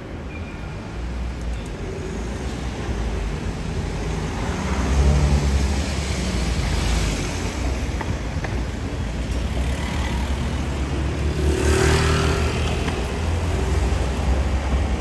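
Cars driving past close by over a steady low traffic rumble. Two passes stand out, one about five seconds in and one near twelve seconds.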